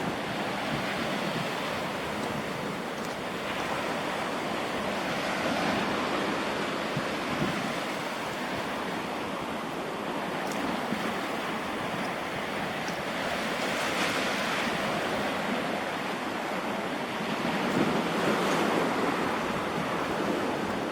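Sea surf washing onto the shore, a steady rush that swells louder every several seconds as waves come in.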